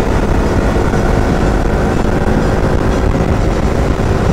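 KTM RC 200's single-cylinder engine running steadily while riding, under heavy, even wind and road rumble on the on-board microphone.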